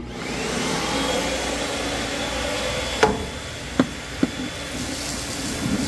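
A 2 kW Freddy EcoVac coolant recycling vacuum switching on and running with a steady rushing whine that rises in pitch over the first second and then holds. From about three seconds in, three sharp ticks as dry metal chips are sucked into the hose nozzle.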